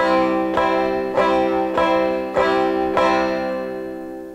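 Four-string plectrum banjo strumming a C major chord with a pick, in alternating down and up strokes, six even strums about 0.6 s apart. After the last strum, about three seconds in, the chord rings on and fades.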